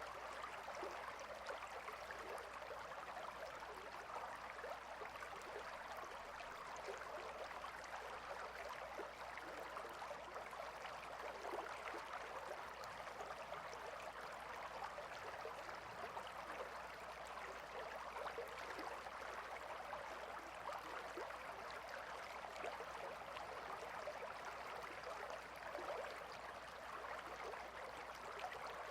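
Gentle river flowing steadily, a continuous bubbling rush of water.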